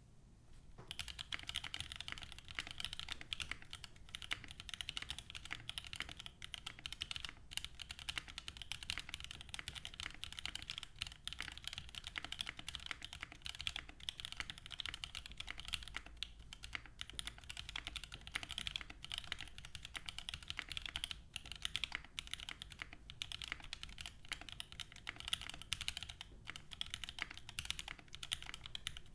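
Typing on a 65% top-mount mechanical keyboard with Cherry MX Black linear switches (Kailh stems swapped in) and GMK Laser keycaps. It is a steady, rapid run of keystroke clacks, starting about a second in.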